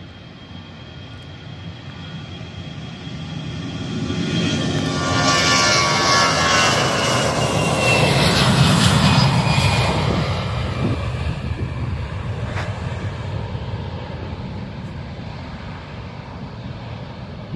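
Narrow-body jet airliner on its takeoff roll at takeoff thrust, passing close by: the engine whine grows, glides down in pitch as the jet goes past, and the deep roar peaks and then fades as it climbs away.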